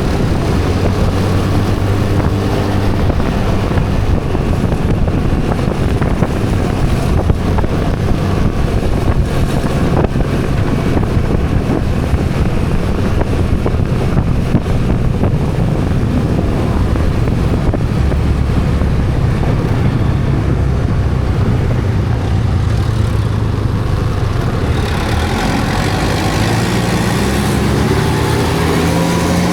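Riding a motor vehicle: a steady engine rumble under heavy wind rush on the microphone. In the last few seconds an engine tone rises in pitch as it speeds up.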